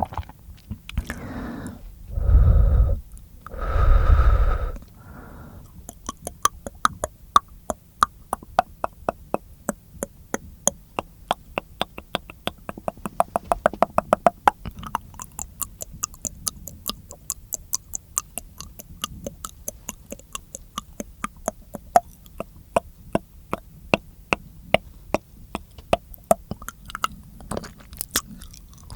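Close-miked mouth sounds: two loud, breathy blows in the first few seconds, then a long fast run of wet mouth clicks, about four or five a second.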